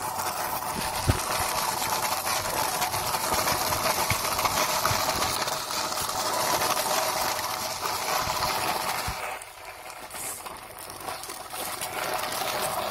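Plastic toy dump truck loaded with soil being pushed along dirt ground: its plastic wheels and body roll with a steady grinding rattle and a few small knocks. The noise dips about nine seconds in, then picks up again.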